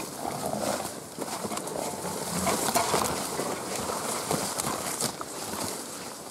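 Leafy brush swishing and scraping against the loaded panniers of a pack-wheel game cart as it is pushed through dense undergrowth. A steady rustle runs throughout, with many small snaps and knocks.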